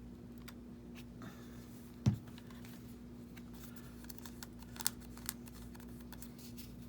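Small clicks and taps of hands handling paper while gluing down a paper embellishment, with one soft thump about two seconds in and two sharper clicks near the end, over a steady low hum.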